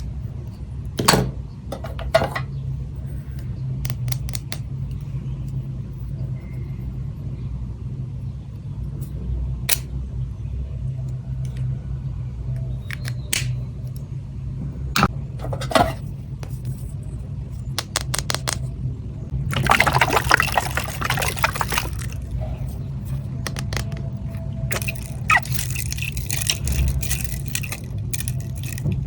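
Stationery being unboxed and handled: scattered sharp taps and clicks of small items, with a quick run of clicks, then a burst of crinkling rustle a little past two-thirds of the way through, over a steady low hum.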